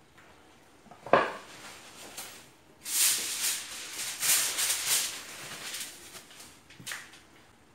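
Kitchen handling sounds: a sharp knock of a dish or utensil about a second in, then a couple of seconds of rustling, shaking noise, and a softer knock near the end.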